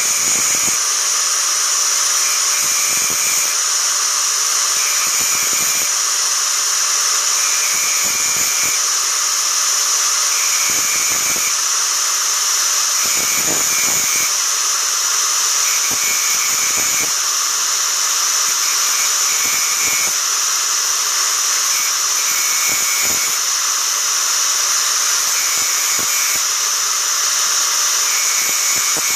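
Angle grinder running steadily at high speed, its disc grinding the teeth of a saw blade to sharpen them, with brief changes in tone every couple of seconds.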